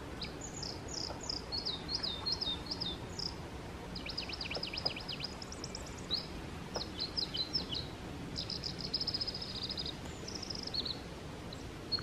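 High songbird phrases: several runs of quick descending chirps and short rapid trills, with short pauses between them, over a steady background hiss.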